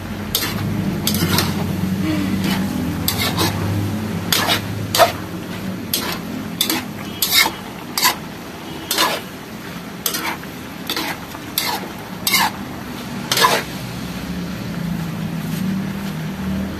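A spatula scraping and clacking against a wok while stirring pork intestines in adobo sauce, with irregular strokes about once a second over a steady sizzle. The strokes stop near the end.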